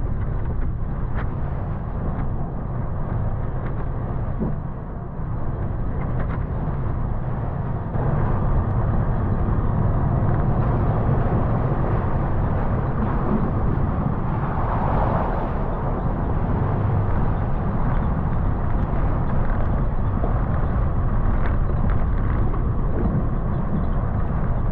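Toyota FJ Cruiser's V6 and drivetrain running as it drives slowly over a rough dirt trail: a steady low rumble with scattered small knocks, getting a little louder about eight seconds in.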